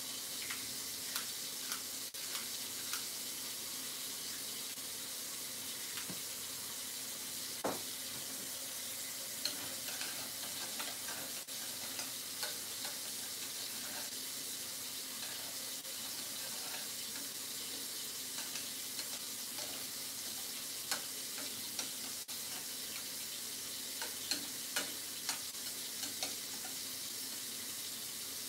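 Rice being stirred in a stainless steel pot on a gas stove: light scattered clicks and scrapes of the spoon against the pot over a steady hiss from the cooking, with a few louder knocks.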